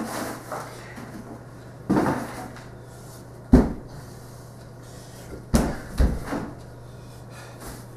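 Four sharp knocks and thumps on a hardwood floor, spread out over several seconds, from a person hopping on one leg and leaning on a broom while shifting a plastic bucket.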